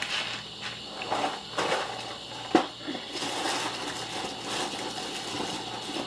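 Rustling and a few light knocks from a cereal box and its bag being handled, the sharpest knock about two and a half seconds in.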